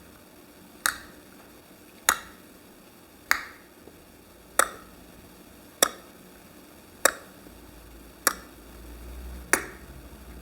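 Loud tongue clicks, the whole tongue pressed against the palate and snapped away, repeated at an even pace about every second and a quarter, eight in all: an anti-snoring tongue and palate exercise.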